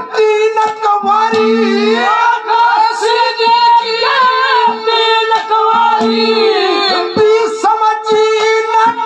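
Male folk singer singing a Haryanvi ragni loudly through a PA system, in a high, ornamented vocal line with long held and bending notes. A steady held accompanying tone runs beneath, with a lower note coming in and out.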